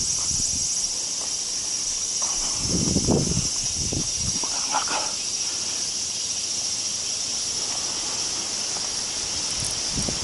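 Steady high-pitched drone of a summer insect chorus, with a few soft low rustles of handling about two to three seconds in.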